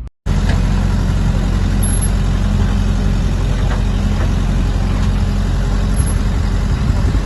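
Heavy diesel engine running steadily at close range, a loud, even low drone with a few faint clicks over it.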